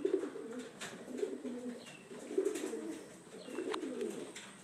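Racing pigeons cooing, several birds overlapping, growing fainter near the end.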